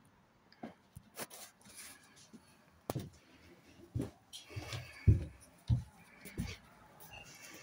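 Footsteps going down an indoor staircase: dull thuds about every half-second to two-thirds of a second, starting about three seconds in, after a few clicks and rustles from handling.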